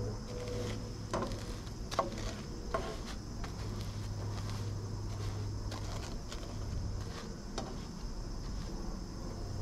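A spatula tapping and scraping against a nonstick frying pan as bread toasts in it: a few sharp clicks in the first three seconds and fainter ones later. Underneath runs a steady low hum and a constant high-pitched buzz.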